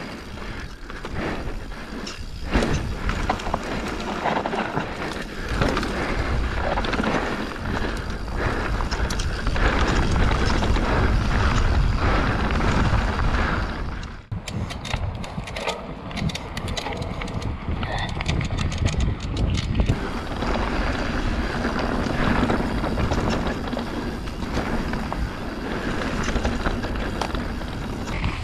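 Radon Jab enduro mountain bike descending a dirt trail, heard from a camera mounted on the rider or bike: wind rushing over the microphone, tyres rolling over gravelly dirt and the bike rattling over bumps. About halfway through the noise drops briefly, then a run of sharp ticks follows for several seconds.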